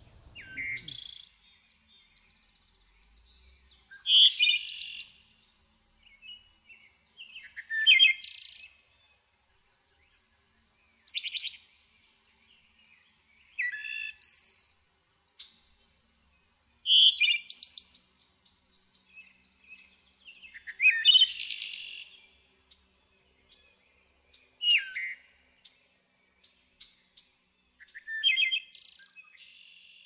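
Wood thrush singing: nine short song phrases, one every three to four seconds, each running from lower notes into a high, rapid trill.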